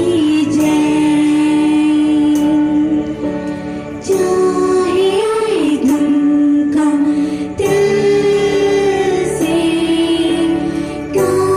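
Christian worship song sung live, the voice holding long notes that bend and glide between pitches over accompaniment, with a few sharp percussive hits.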